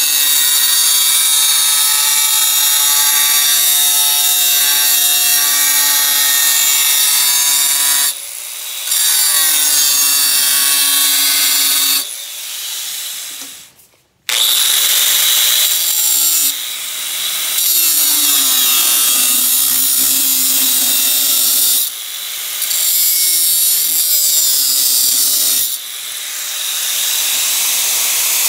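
Angle grinder with a cutoff wheel cutting into a large steel circular saw blade: a loud, steady grinding over the motor's whine, with brief lulls when the wheel eases off the cut. About halfway through the sound falls away almost to silence, then the grinder starts cutting again.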